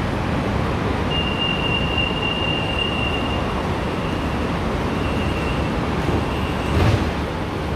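Metro train running, heard from inside the carriage: a steady rumble and rush of wheels on track. About a second in, a thin high squeal starts; it holds for several seconds, then breaks up. A short knock near the end.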